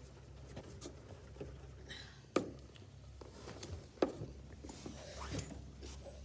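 A hand pressing a ball of modelling clay flat into a disc on a tabletop: a few faint taps and two sharper knocks, about two and a half and four seconds in, over a low room hum.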